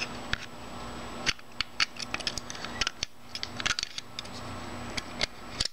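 Irregular small metallic clicks and scrapes of a steel hook tool working a brush spring back while a carbon brush is slid into its holder in a Ford long shaft electric motor.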